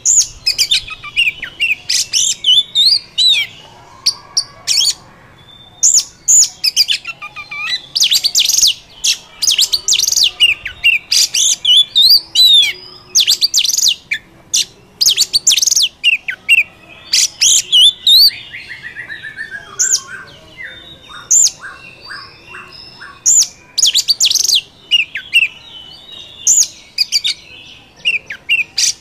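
Oriental magpie-robin singing a loud, varied song of sharp whistles, slurred notes and quick trills in short phrases. About two-thirds of the way through comes a falling run of rapid notes.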